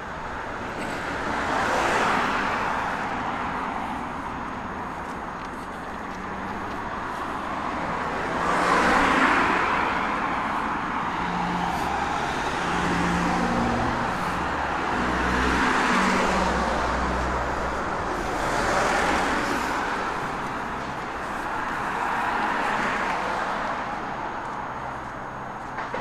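Road traffic: vehicles passing close by one after another, about six in turn, each a swell of tyre and engine noise. A heavier vehicle's low engine hum comes through in the middle.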